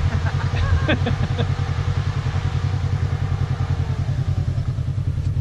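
Polaris side-by-side UTV engine idling with a steady, even throb.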